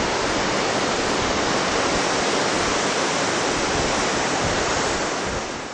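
Steady wash of surf on a sandy beach, fading out near the end.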